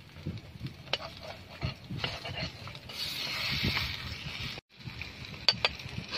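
Metal spoon scraping and clinking against a shallow metal plate as egg is stirred and folded over a wood fire. There are scattered sharp clicks and a brief hiss about three seconds in.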